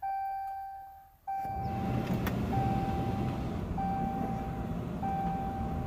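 Pickup truck's warning chime sounding a steady tone in about five repeated beeps, each nearly a second long, over a steady low rumbling noise that starts about a second in.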